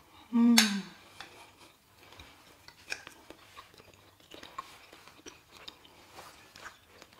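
A fork tapping and scraping on a plate in a string of light clicks, with soft chewing of crisp breaded fried chicken. About half a second in, a short vocal sound falls in pitch.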